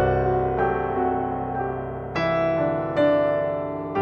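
Background piano music: chords struck roughly once a second, each left to ring and fade before the next.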